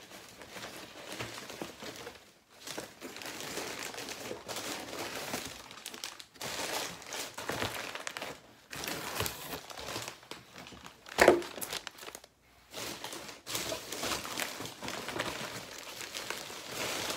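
Packing material crinkling and rustling as hands rummage through a cardboard shipping box, in stretches with short pauses. One sharp knock, the loudest sound, comes about two-thirds of the way through.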